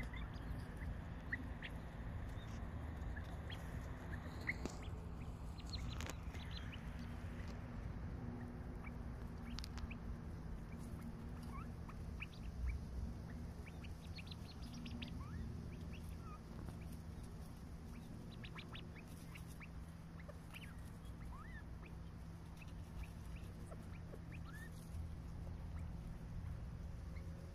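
Quails foraging in grass: scattered short pecking clicks and brief soft chirps over a steady low rumble.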